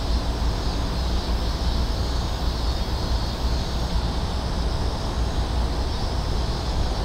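Wind buffeting the microphone outdoors: a steady low rumble with an even hiss over it.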